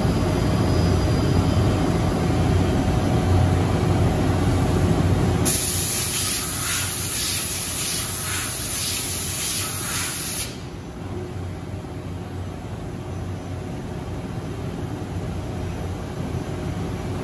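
Steady low hum of shop machinery, then about five seconds in a loud hiss of compressed air, faintly pulsing, at the lathe chuck where the robot's gripper is working. It cuts off after about five seconds, leaving a quieter steady hum.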